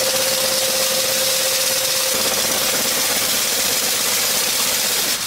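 Automatic chain link fence machine running as it weaves diamond wire mesh: steady mechanical noise with a thin steady whine that fades out about two seconds in.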